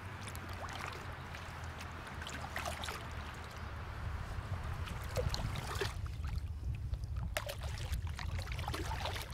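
Canoe paddle working the water: irregular splashes and drips off the blade, over a low steady rumble.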